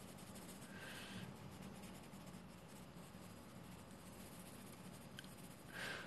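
Faint scratching of a graphite pencil on drawing paper as shading strokes are laid down, with a slightly louder stroke about a second in.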